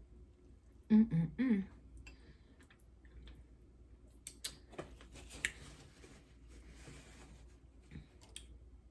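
Close-up eating sounds: chewing with wet mouth clicks and crunching as a woman eats fried chicken and greens. About a second in, a brief loud vocal sound, like a hummed 'mm'.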